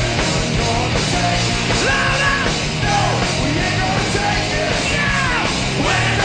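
Live hard rock band playing loud: distorted electric guitars, bass guitar and drums, a dense, unbroken wall of sound with bending lead lines on top.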